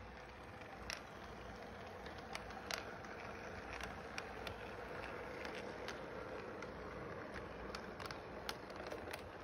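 Toy electric train running past on its track: a steady motor hum and wheel rumble, with scattered sharp clicks as the wheels pass over the rail joints.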